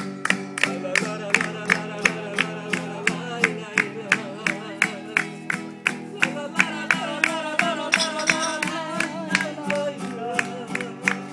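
Acoustic guitar played with a voice singing along, and hands clapping to the beat about three times a second.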